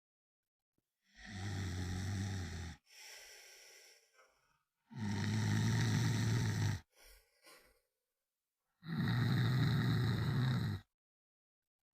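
A person snoring: three loud, low rumbling snores about two seconds long, roughly every four seconds, each followed by a quieter breath.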